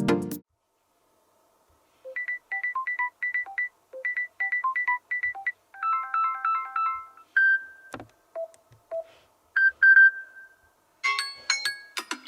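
Samsung Galaxy S21 FE ringtones playing through the phone's speaker: short electronic tunes of bright, plinking notes at about four a second. The tune changes to a different one about six seconds in and again near the end, with a single click about eight seconds in. It begins with the last half-second of louder music.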